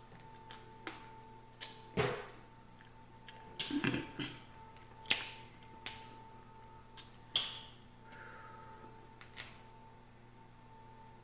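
Cooked shellfish shells cracking and snapping as they are peeled by hand: sharp separate cracks every second or two, over a faint steady hum.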